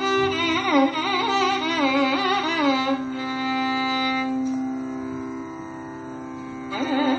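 Carnatic classical melody with gliding, ornamented phrases over a steady drone. A long held note comes in the middle, and the ornamented phrasing returns near the end, without drum strokes.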